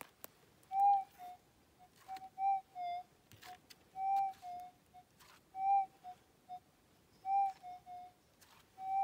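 Minelab gold detector's audio signal as the coil is swept back and forth over a buried gold nugget. It gives a pair of whistle-like tones, a higher one then a slightly lower one, about every second and a half, over a faint steady threshold tone.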